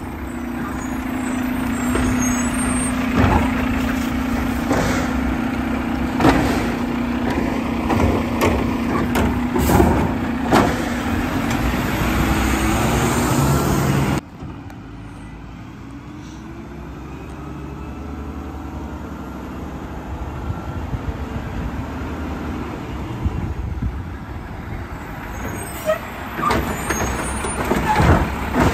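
Split-body side-loader garbage truck on a Mack chassis, its diesel engine running with a steady hum as it drives up, with knocks and rattles from the body. About halfway through the sound cuts suddenly to a quieter steady idle, and a few sharp clanks come near the end.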